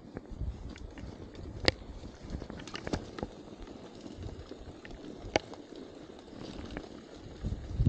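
Mountain bike rolling over a bumpy dirt singletrack: a steady low rumble of tyres and wind, with irregular clicks and knocks as the bike rattles over the ground, two sharper knocks at about two and five seconds. Jacket fabric rubbing near the chest-mounted camera adds to the rumble.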